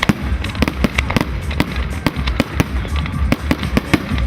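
Fireworks going off in quick, irregular succession, sharp cracks and pops one after another, over music with a deep pulsing bass.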